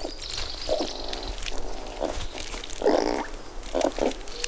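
Black lemur making a series of short, low animal sounds as it mouths and rubs a millipede against its fur, with scattered sharp clicks. The longest and loudest sound comes about three seconds in.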